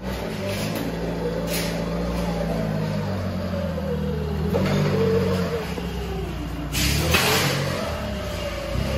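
Forklift engine running as the forklift drives in, a steady low hum with a wavering whine above it. A brief hiss about seven seconds in.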